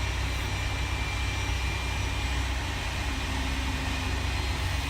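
Pushback tug's engine running steadily, heard from inside the cab as a constant low hum.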